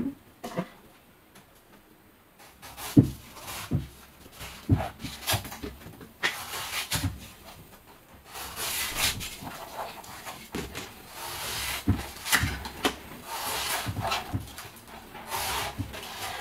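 Large kitchen knife chopping and slicing the husk off a young green coconut on a wooden stump. Sharp chops, some thudding into the wood, mix with longer hissing strokes as slabs of husk are shaved away, starting after about two quiet seconds.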